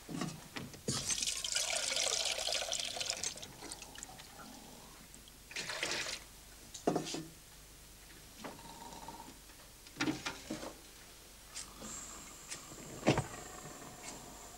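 Water poured into a container for a couple of seconds, then a few clanks and knocks of metal things being handled and set down, the loudest near the end. A faint steady high tone sets in near the end.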